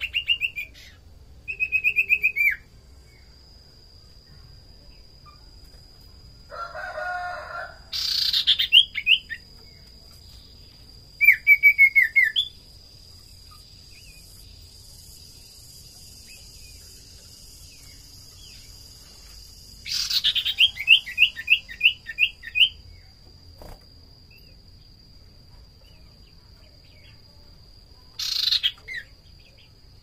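Common iora (cipoh, sirtu) calling in short series of quick, falling chirps, about six series with pauses of several seconds between them.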